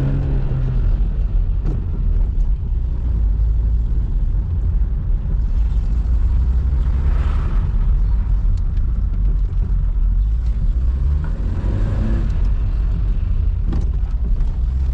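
Car engine and road noise heard from inside the moving car's cabin: a steady low rumble.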